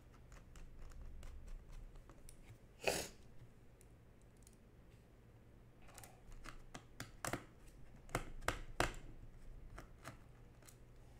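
Faint scattered clicks and a brief scrape of a small Torx screwdriver driving the captive screws of a laptop's metal bottom panel. A run of sharper clicks in the second half comes as a hand presses the panel down and its plastic clips snap back into place.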